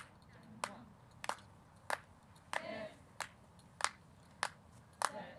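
Hand claps keeping a steady marching tempo, about three claps every two seconds, with brief snatches of voices between them.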